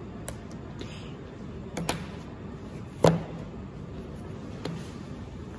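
A few light knocks and taps as things are handled and set down on a desk, the sharpest about three seconds in, over steady room noise.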